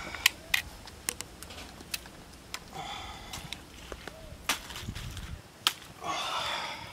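Cooked crab being broken apart by hand: a scatter of sharp cracks and clicks from the shell, with leaves rustling underneath. A louder, longer noisy stretch comes near the end.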